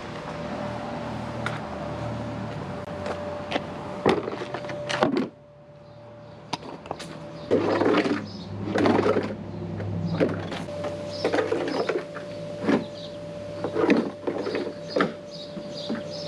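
Plastic drive-on car ramps being set down and shoved into place on asphalt, giving irregular knocks, clatters and scrapes, mixed with footsteps. A steady thin tone sits underneath and drops out for a few seconds in the middle.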